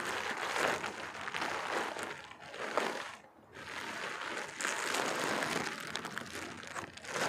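Clear plastic packaging bag crinkling as it is opened and handled, with a short lull about three seconds in.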